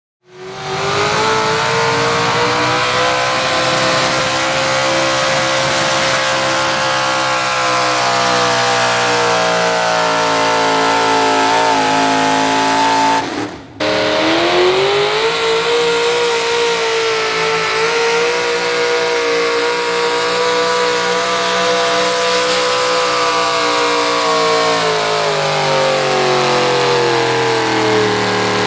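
Modified pulling tractor engines held at full throttle under load down the pull track: a loud, steady engine note whose pitch sags slightly toward the end of each run. It cuts off abruptly about halfway through and then picks up again with a second tractor's run.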